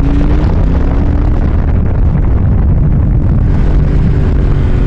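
Triumph Speed Twin 1200's parallel-twin engine pulling hard under acceleration, its note rising at first. Loud wind rushes over the microphone and nearly buries the engine.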